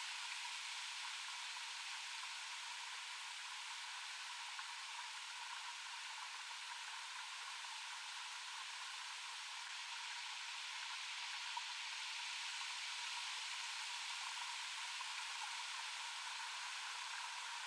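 A steady, even hiss with faint held tones near the middle of the range, unchanging throughout, with no deep sound under it.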